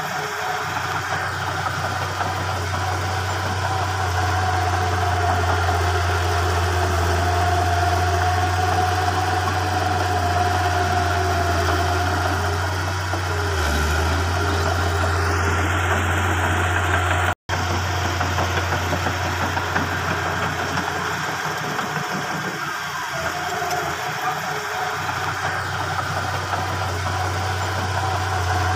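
Heavy diesel construction machinery running steadily with a low, even engine hum. The sound cuts out abruptly for an instant a little over halfway through.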